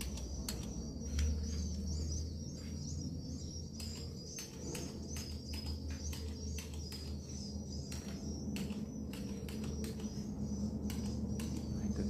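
Swiftlets twittering inside a swiftlet house: a continuous, wavering high-pitched chirping with quick dry clicks scattered all through it, over a low steady hum.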